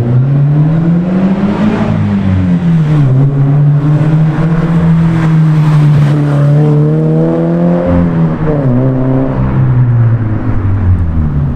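Subaru BRZ's flat-four engine heard through a Spec D cat-back exhaust, its note rising and falling with engine speed. It climbs to a peak about two seconds in, settles to a steady drone, and dips briefly near the eight-second mark.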